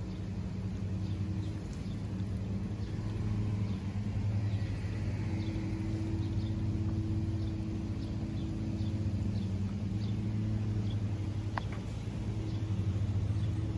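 A steady low engine hum, like a motor vehicle idling close by, with faint high chirps repeating at an even pace over it. There is one short sharp squeak near the end.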